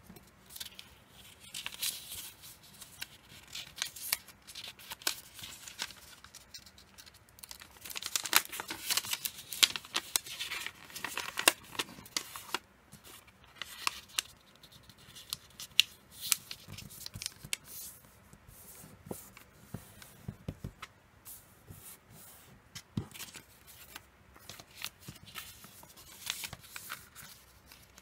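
A sheet of origami paper being folded by hand: irregular rustling and crinkling with sharp, crisp crackles as creases are pressed flat, while a corner is opened out and squashed down into a square.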